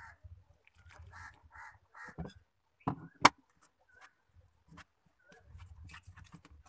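Hand mixing flour in a steel bowl, with sharp metal clinks; the loudest clink comes a little over three seconds in. Birds call in the background, with a run of short harsh calls in the first two seconds.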